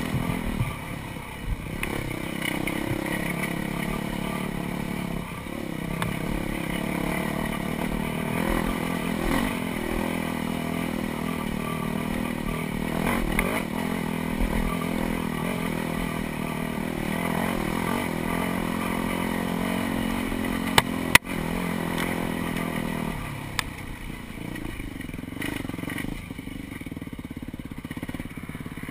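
Dirt bike engine running under throttle, its revs rising and falling on a trail ride, with chassis clatter. A couple of sharp knocks come about three-quarters of the way through, and soon after the engine drops to lower revs.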